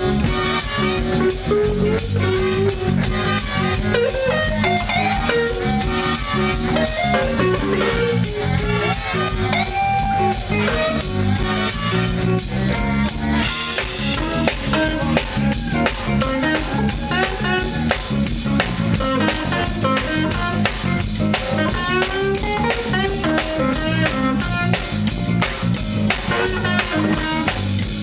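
Live blues band: an electric guitar playing single-note lead lines with bent, sliding notes over bass and drums. The cymbals grow louder about halfway through.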